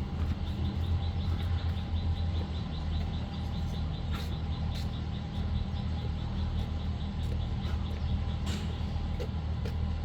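An engine running steadily, with a fast, regular high ticking over it for the first half or so.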